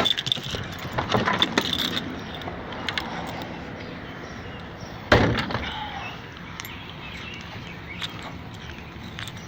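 Keys and small handling clicks and rattles, then a car door slammed shut with a single loud thump about five seconds in.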